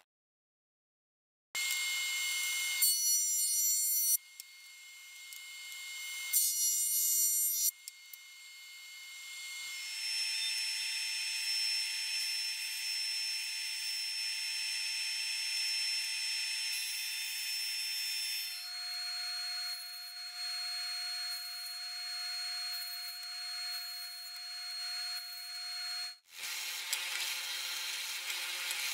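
Woodshop power tools running in a series of short clips, each with its own steady whine: a JET jointer with a board fed across its cutterhead, then, near the end, an oscillating belt sander sanding a wooden block.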